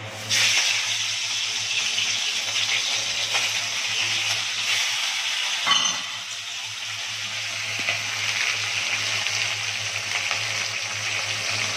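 Hilsa fish pieces hitting hot oil in a steel wok and frying with a steady sizzle that starts suddenly as they go in. A single clink about six seconds in, over a low steady hum.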